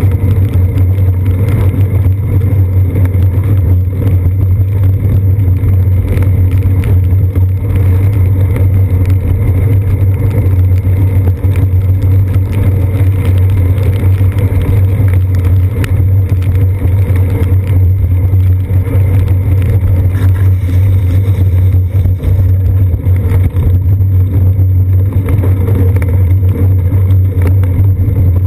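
Loud, steady low rumble of a bicycle riding on wet pavement, picked up through a seat-post-mounted GoPro Hero 2: road vibration and wind noise, with no breaks or sudden events.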